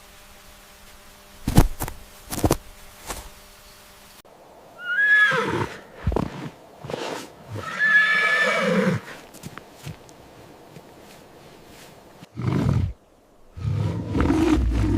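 Horse neighing: a short wavering whinny about four seconds in, then a longer whinny about eight seconds in, after a few sharp knocks. Near the end a deep, loud sound starts.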